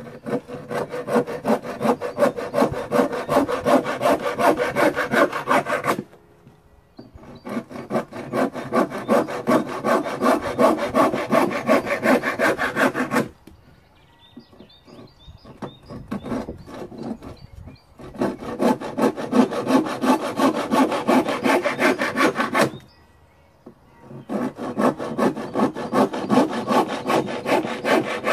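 Hand saw cutting wood in quick back-and-forth strokes, in four runs of about five to six seconds with short pauses between them.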